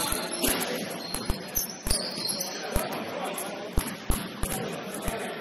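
Basketball bouncing on a gym floor: a dozen or so sharp, irregular thuds over a background of voices, with a brief high squeak near the middle.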